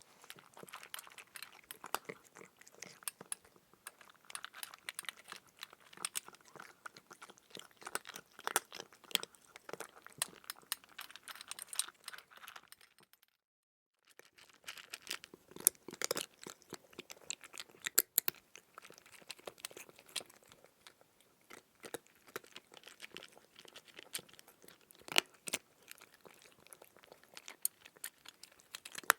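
Crunchy chewing and biting: a dense, irregular run of small crunches and crackles, broken by a brief dead silence about 13 seconds in.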